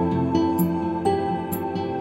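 Gentle new-age background music: slow, sustained melodic notes moving to a new pitch about every half second.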